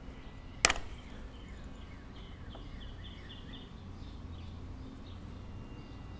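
One sharp metallic click about a second in, from a screwdriver working the small screw that holds the float pin on an aluminium small-engine carburetor; the rest is quiet hand-tool work.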